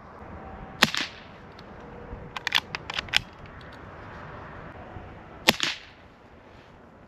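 Henry Golden Boy .22 LR lever-action rifle firing low-noise CCI Quiet rounds: two sharp shots about four and a half seconds apart. Between the shots comes a quick run of metallic clicks as the lever is worked to chamber the next round.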